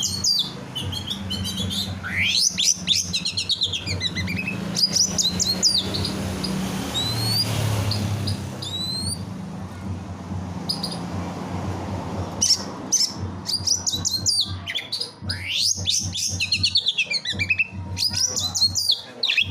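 Songbirds singing: dense bursts of rapid chirps, trills and quick rising and falling whistles, thinning out to a few scattered notes in the middle. A low steady hum runs beneath.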